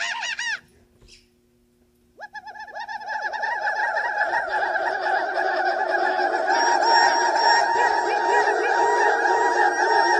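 Ewok creature vocal sound effects: a few short, high, arching chirps, then after a brief pause a dense chorus of many overlapping chirping calls that builds up over about two seconds and keeps going.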